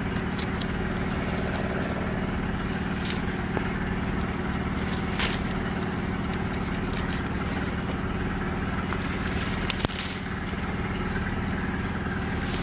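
A steady, even motor hum like an engine idling runs throughout, with scattered sharp snaps and rustles of twigs and leaves from branches being pulled and picked.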